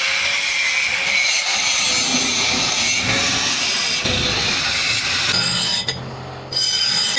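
Steady rasping of a tool working metal, which drops away for about half a second around six seconds in, then resumes.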